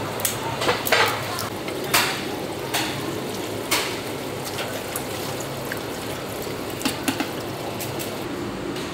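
Kitchen scissors snipping through raw shellfish, a few sharp irregular snips and clicks, over a steady wash of running water.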